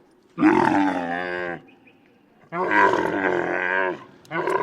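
Camel grunting loudly in long, drawn-out calls: two of about a second to a second and a half each, with short pauses between, and a third starting near the end.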